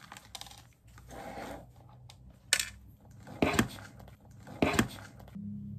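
A dog wearing a plastic cone at its food bowl: three sharp clicks and clinks about a second apart as the cone and bowl knock together, after a soft rustle.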